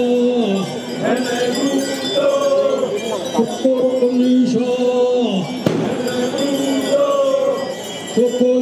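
A group of voices chanting a dance song in long held notes, phrase after phrase, each note dipping in pitch as it ends.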